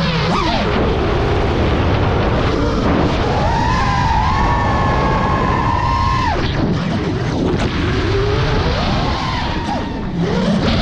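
FPV racing quadcopter's motors whining as the throttle changes, the pitch sliding up and down. The whine climbs about three and a half seconds in, holds, then falls away a couple of seconds later, over a heavy rush of wind and prop wash.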